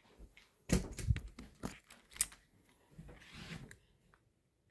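Irregular sharp clicks and rustling in a small room: a cluster of ticks in the first two seconds or so, a softer rustle a little after three seconds, then near silence.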